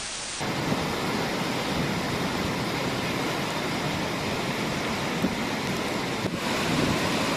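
Steady rushing of fast-flowing floodwater, an even noise with no distinct events.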